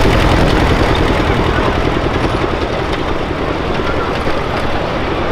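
Miniature ride-on passenger train passing close by: a steady mechanical rumble with a dense rattle of the cars running over the track.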